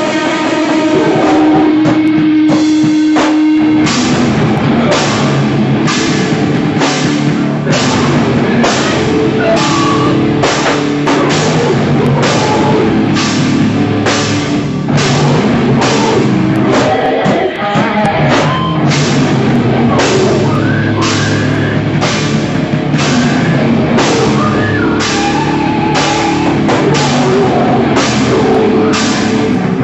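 Live heavy rock band playing loud, electric guitars and drum kit. A single guitar note is held for the first few seconds, then the full band comes in with a steady beat.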